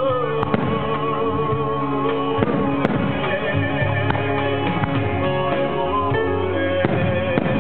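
Music for a fireworks display with aerial firework shells bursting over it: a few sharp bangs, about half a second in, twice near three seconds, and near the end.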